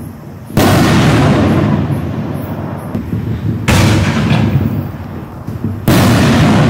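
5-inch canister shells from a Black Cat Neon Diablo kit firing. A shell bursts with a loud bang about half a second in. The next is launched from its tube with a thump a few seconds later and bursts about two seconds after that. Each report dies away over two to three seconds.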